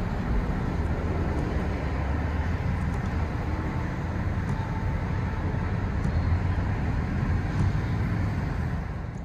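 Steady low rumble of road and wind noise heard from inside a moving car.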